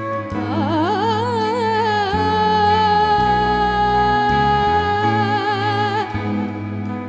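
Live band music: a lead melody slides up with wide vibrato, then holds one long note for about four seconds before letting go, over sustained low accompanying notes.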